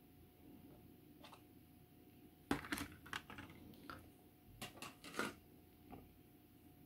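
Scattered sharp clicks and taps of hard plastic model kit parts and hobby tools being handled on a workbench, in two short clusters about two and a half and five seconds in.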